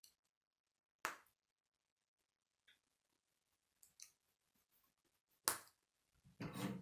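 Plastic K'nex rods snapping into connectors by hand: a few separate sharp clicks, the loudest about a second in and about five and a half seconds in. Near the end, a run of plastic clattering as the pieces are handled against the model on the table.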